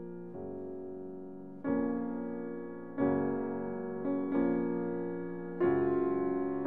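Background piano music: slow, sustained chords struck every second or so, each fading before the next.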